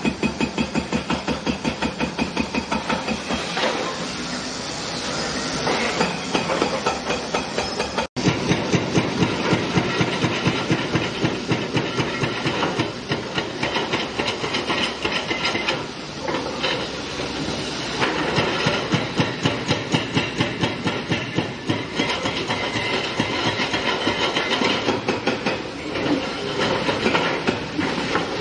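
Excavator-mounted hydraulic breaker hammering concrete in rapid, continuous blows. The sound cuts out for an instant about eight seconds in.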